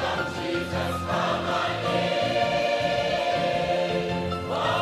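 A choir singing a slow gospel worship song over instrumental backing, with held notes above a steady bass line.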